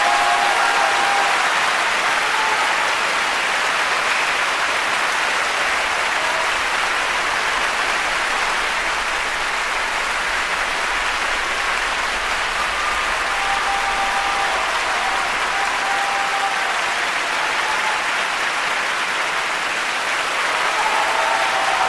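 A large audience applauding steadily and thickly throughout, with a few short pitched calls rising above the clapping here and there.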